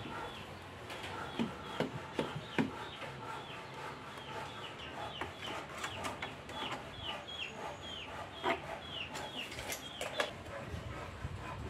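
Chickens calling nearby: a steady run of short, high, falling peeps, about two a second, which stops shortly before the end. A few sharp knocks from handling the plywood box come in between.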